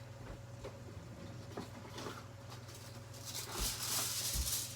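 A few light taps and clicks over a steady low hum, then about three seconds in, kitchen foil starts crinkling and rustling as it is pulled from the roll, growing louder.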